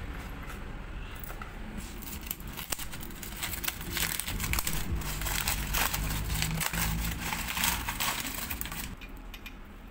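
Crumpled sheets of lined paper crinkling and rustling as they are handled and squeezed, starting about two seconds in and stopping shortly before the end.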